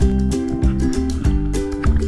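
Background music: plucked guitar or ukulele strumming over a steady beat.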